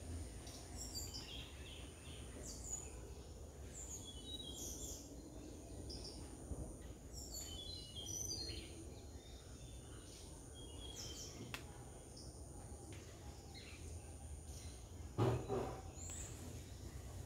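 Garden birds chirping in short, scattered calls over a steady faint high tone, with one brief louder sound about fifteen seconds in.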